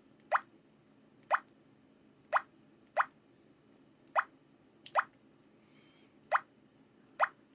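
Electronic effect sound of a PT-L2200 device, plausibly its slide sound: a short, bubbly 'plop' blip rising quickly in pitch. It plays about eight times at irregular intervals, roughly one a second.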